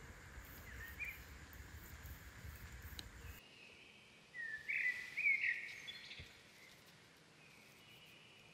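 Outdoor ambience with a bird calling: a faint chirp about a second in, then a louder run of quick chirps about halfway through. A low background noise cuts off suddenly a little after three seconds.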